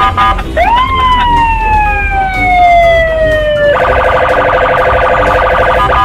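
Police patrol car siren: a quick rise, then one long slowly falling wail, switching a little past halfway to a rapid warble. A low steady rumble runs underneath.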